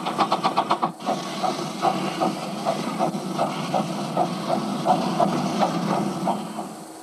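Miniature 15-inch-gauge steam locomotive chuffing. For about the first second the beats come quickly; after a change it settles into a slower, regular beat about three times a second over a steady hiss.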